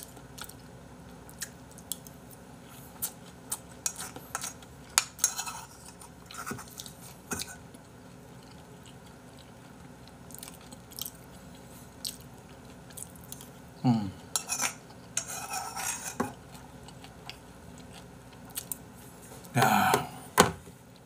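A metal spoon clinking and scraping against ceramic bowls, with chewing, while eating stew: scattered sharp clicks and a few short noisy bursts, the longest and loudest just before the end.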